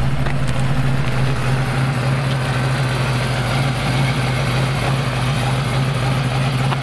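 Car engine idling steadily, a constant low hum.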